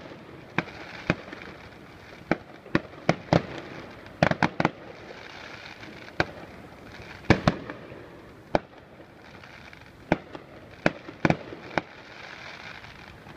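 Fireworks display going off: sharp bangs at irregular intervals, sometimes two or three in quick succession, over a steady hiss between them.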